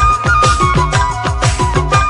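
Background music: a steady drum beat of low strokes that drop in pitch, about four a second, under a held melody line.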